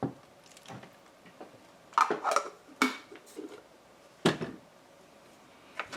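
A few sharp, irregular clicks and light knocks, with some clatter about two seconds in.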